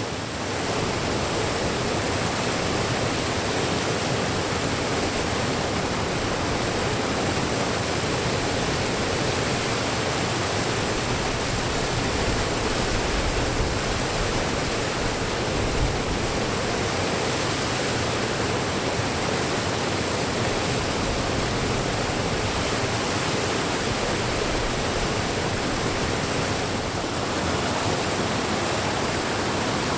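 Water pouring over a weir, close by: a steady, loud rush of falling water.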